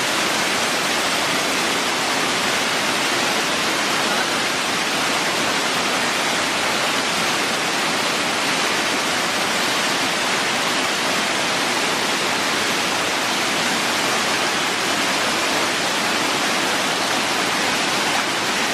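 Waterfall rushing, a steady even wash of falling water that does not change.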